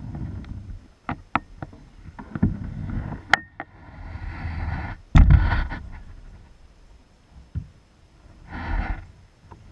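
Handling noises in a kayak: scattered knocks and clicks against the hull, a couple of water swishes, and one heavy low thump about halfway through.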